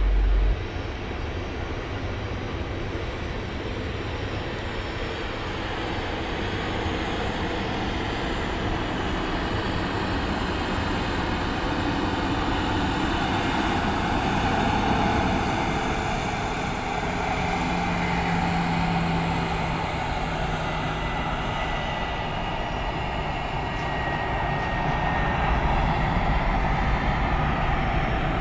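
Distant jet airliner landing: a steady engine rumble with a wide hiss, growing a little louder about halfway through and again near the end. A short low hum sounds a little past the middle.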